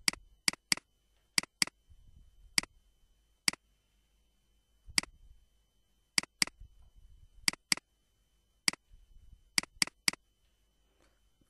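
Computer mouse button clicking: about sixteen sharp, single clicks spread unevenly, several of them in quick pairs.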